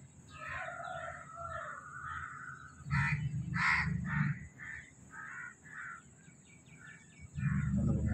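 Crows cawing over and over in short repeated calls, loudest about three to four seconds in. Near the end a louder, steady low sound comes in.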